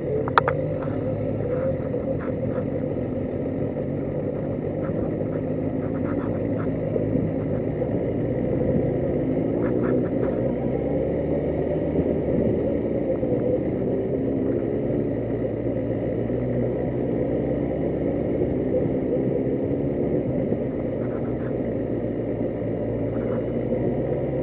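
Motorcycle engine running at low speed while the bike moves slowly. Its pitch wavers gently up and down.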